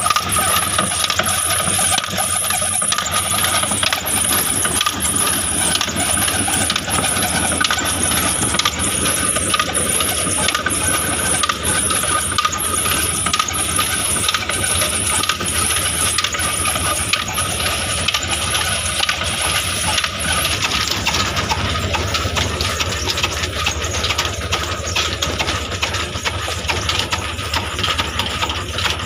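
Old black diesel engine running steadily, driving a stone flour mill (aata chakki) through a flat belt. A steady high tone runs through it, and a high rhythmic hiss repeats about one and a half times a second until it stops about two-thirds of the way through.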